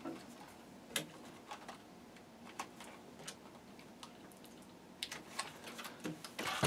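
Scattered light plastic clicks and taps from a 1/16 RC buggy's body shell being pressed back onto the chassis and clipped in place, with a quicker run of clicks near the end as the buggy is handled.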